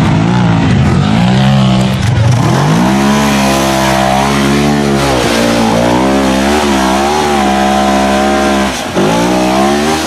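Off-road vehicle engine running loud under hard throttle, its pitch dropping and then climbing again about two seconds in and once more near the end.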